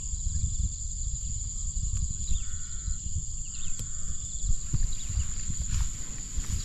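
A steady high-pitched insect trill over a low rumble, with grass swishing under footsteps through the second half.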